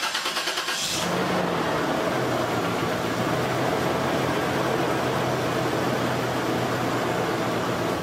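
Toyota 3.4-litre 5VZ-FE V6 cranked by the starter for about a second, then catching and idling steadily with a cylinder 4 misfire: a lean cylinder that the owner traces to a clogged or failed fuel injector.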